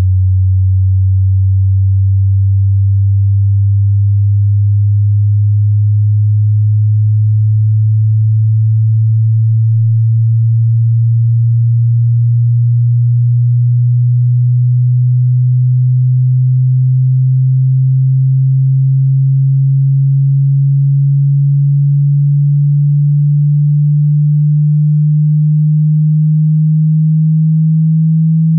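A single low pure sine tone, steady in loudness, glides slowly and smoothly upward in pitch throughout. It is the low end of a hearing-test frequency sweep through the range of human hearing, from 20 hertz to 20 kilohertz.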